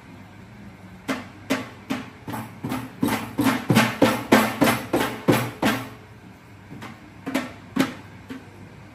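Child's drum set played by a toddler slapping the drum heads with open hands: a quick, irregular run of drum hits starting about a second in, a short pause, then a few more hits near the end.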